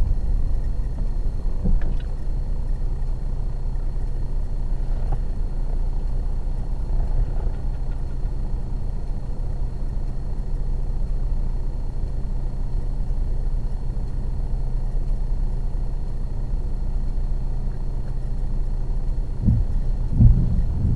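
Car engine idling, a steady low rumble heard inside the cabin through a dash cam's built-in microphone, with two short low thumps near the end.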